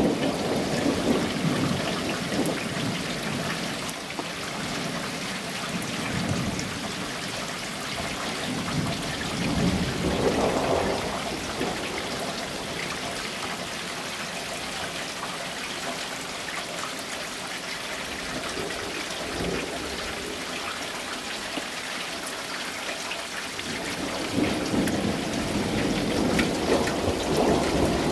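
Steady rain hissing down during a thunderstorm, with rolls of thunder: one at the very start, another about ten seconds in, and a longer rumble building over the last few seconds.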